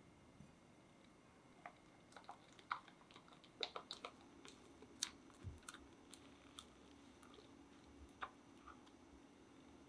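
Light clicks and taps of a silicone spatula and a small glass bowl against a glass mixing bowl as thick batter is scraped out and poured in. The ticks come scattered, busiest in the middle.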